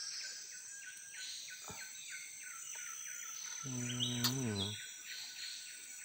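Tropical forest ambience: a steady high insect drone with quick repeated chirping calls. A person's short voiced sound rises and falls briefly about four seconds in.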